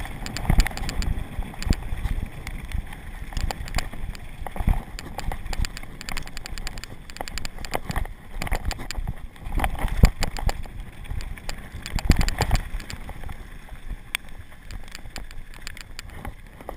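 Mountain bike riding fast down a rough dirt trail: the bike clatters and knocks irregularly as the wheels hit bumps, over a steady low rumble, with the hardest knocks about two-thirds of the way through.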